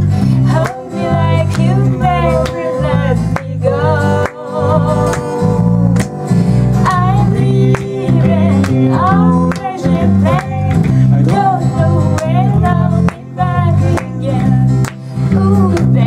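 Live acoustic folk-pop song: a woman singing while strumming an acoustic guitar, over an electric bass guitar, with a man's voice singing harmony from a lyric sheet.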